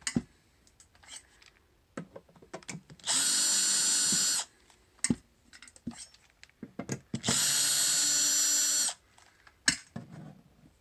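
Power drill-driver running in two steady bursts of about one and a half seconds each, backing screws out of a battery case cover, with scattered small clicks and taps of screws being handled and set down in between.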